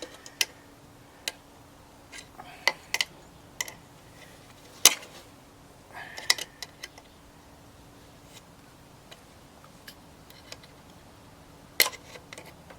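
Scattered sharp clicks and taps of metal hand tools and parts being handled, the loudest about five seconds in and a small cluster about a second later, over a faint steady hum.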